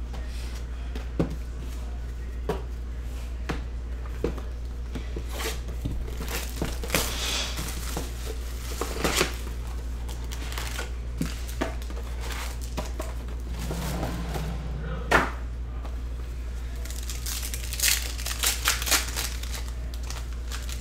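A sealed trading-card hobby box being unwrapped and opened, and its packs handled: crinkling and tearing wrapper plastic, with cardboard rustles and small clicks coming in irregular bursts. A steady low hum runs underneath.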